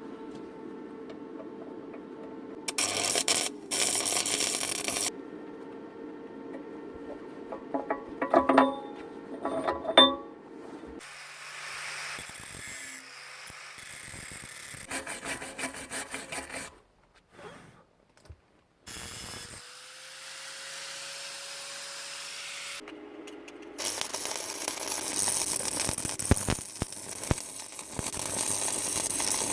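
Power-tool metalwork on steel in short cut-together stretches. A motor hums steadily and, after a brief gap about two-thirds of the way through, comes back rising in pitch. Several loud stretches of harsh hissing grinding cut in and out abruptly.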